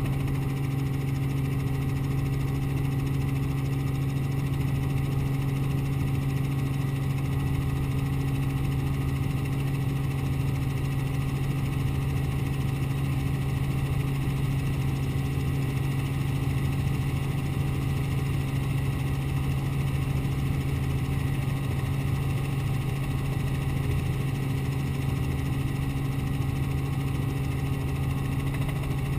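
Robinson R44 helicopter in forward flight, heard from inside the cabin: its six-cylinder piston engine and rotors running steadily at an unchanging pitch and level.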